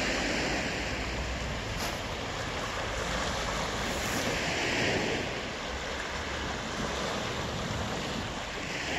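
Small sea waves breaking and washing up a fine pebble beach, surging about every four to five seconds, with wind buffeting the microphone.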